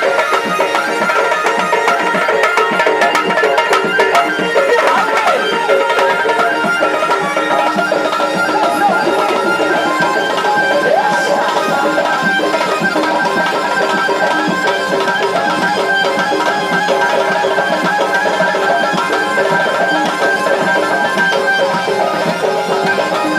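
Traditional Tunisian folk music: hand drums beat a busy rhythm under sustained melodic instrument lines.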